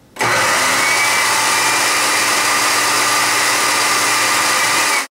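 Countertop blender motor running at high speed, blending chunks of Asian pear, onion, garlic, ginger and spring onion. It starts just after the beginning, runs steadily, and cuts off abruptly near the end.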